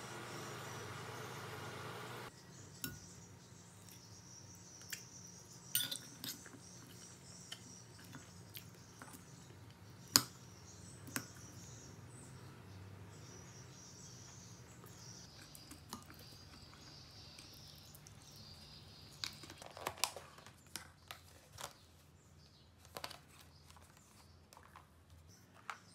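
A metal fork clicking and scraping against a ceramic salad bowl, scattered sharp clicks over quiet room tone, the loudest about ten seconds in. Near the end a run of quicker clicks and rustling as a clear plastic food container is handled. A steady hiss fills the first two seconds and cuts off suddenly.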